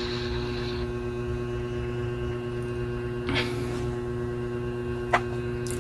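Steady electrical mains hum with a few evenly spaced tones, with a couple of faint brief noises in the middle and near the end.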